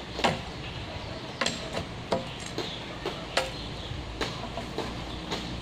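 About half a dozen sharp knocks and clicks at irregular intervals, the strikes of a blade on bamboo as its side branches are cleaned off.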